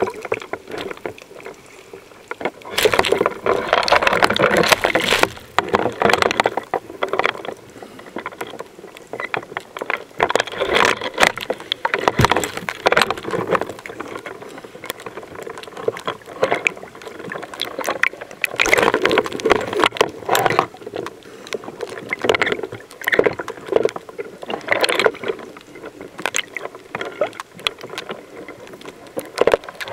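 Water sloshing and churning around a camera held just under the surface, with swimmers splashing, coming in irregular surges and broken by sharp clicks and knocks.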